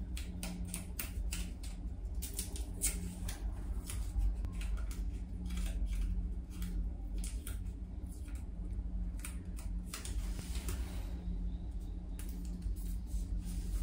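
Paper washi tape being pulled off its roll and torn, a run of short crackling rips that thin out about eleven seconds in as the strip is pressed down. A low steady hum runs underneath.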